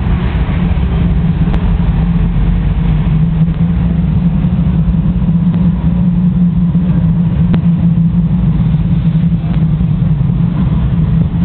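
Electric tram running: a steady low hum and rumble from its motors and wheels on the rails, with two faint clicks.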